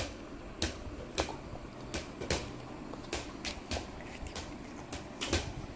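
A run of short, sharp knocks or taps at uneven spacing, about one to two a second.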